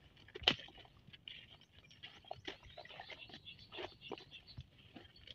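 Rustling and crackling of a woven plastic sack being twisted shut and tied off by hand, with a sharp click about half a second in and scattered smaller clicks after it.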